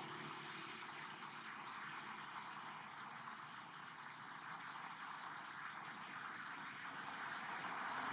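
Forest ambience: a steady hiss of background noise with short, high-pitched chirps repeating every half second or so.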